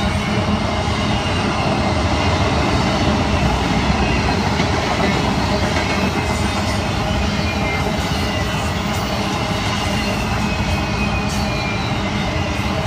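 Intermodal freight cars, double-stack well cars and flatcars with container trailers, rolling past close by: a steady, loud rumble and clatter of steel wheels on rail.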